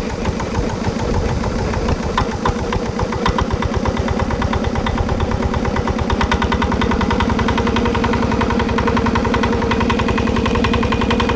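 Fishing boat engine running steadily with a fast, even beat, being run to check an abnormal noise that the mechanic suspects comes from the lower unit and propeller.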